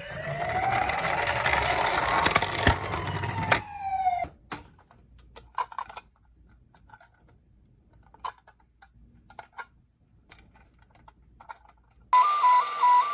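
An emergency-vehicle siren wails upward in pitch, then cuts off with a click about three and a half seconds in and briefly falls away. Light scattered clicks follow in near quiet. Near the end a loud two-tone "pee-po" ambulance siren starts, alternating steadily between a high note and a low note.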